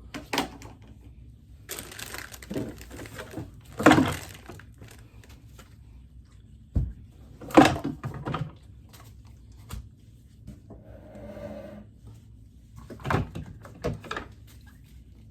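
Irregular clicks, knocks and rustles of things being handled and moved about, a dozen or so separate sounds with no steady rhythm.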